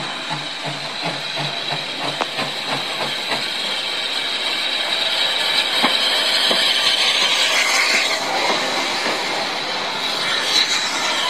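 Steam locomotive No. 592 approaching and passing close underneath: steady exhaust beats, about three a second, at first, a few sharp clicks, then a loud hiss of steam that builds as the engine comes through.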